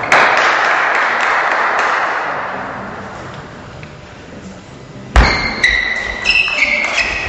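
Applause from the hall's crowd dying away over the first couple of seconds. About five seconds in, a table tennis rally starts with a loud thud at the serve, then a quick run of sharp pinging hits of the celluloid ball on rackets and table.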